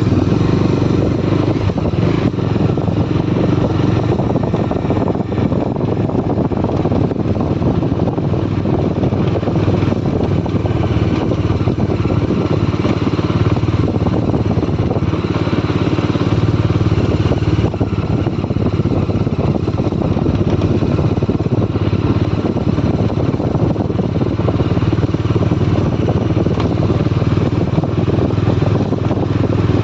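Bajaj Dominar motorcycle's single-cylinder engine running steadily while the bike is ridden at a constant pace, mixed with a dense rush of wind and road noise.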